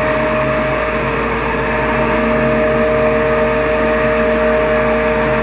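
Rice husk grinding machine running steadily with a continuous mechanical whine and hum.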